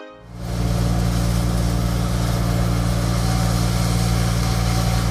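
Combine harvester running steadily while cutting wheat, heard from inside the cab: a steady engine drone with a deep hum that comes in abruptly just after the start.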